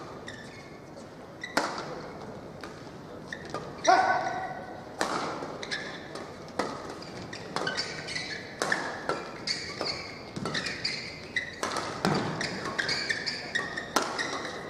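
Badminton doubles rally: rackets hit the shuttlecock with sharp cracks at an irregular pace. Between the hits, court shoes squeak and footsteps thud on the court, with one louder squeak or cry about four seconds in.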